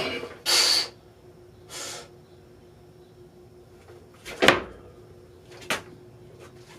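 A loaded barbell dropped from overhead lands on the lifting platform about four seconds in with a loud thud and rattle, then knocks twice more as it settles. Before that there are two short bursts of hissing.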